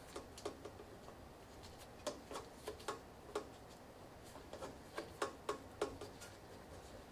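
Irregular light clicks and ticks as the Deepcool AK620 cooler's mounting screws are turned to catch their threads over the CPU, some coming in quick pairs.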